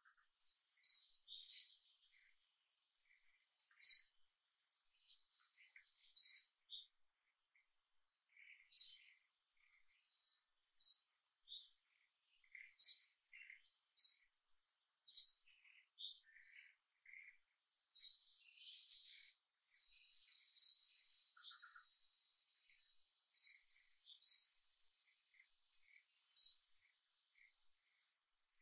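Wild birds chirping: short, sharp, high notes repeating every one to two seconds, over a faint steady high insect tone.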